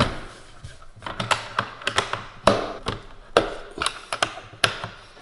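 Metal latches and lid of a fiberglass military teletype case being handled and snapped shut by hand: a run of irregular clicks and knocks.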